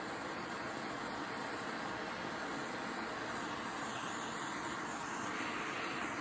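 Handheld torch on a MAP-Pro gas cylinder burning with a steady flame noise as it heats a cast aluminum part for brazing.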